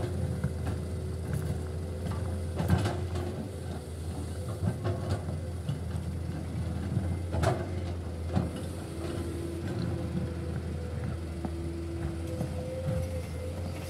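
Komatsu hydraulic excavator digging a ditch: steady diesel engine drone with a whine that shifts in pitch as the hydraulics work, and a few knocks and scrapes of the bucket on stony soil, the sharpest about two and a half and seven and a half seconds in.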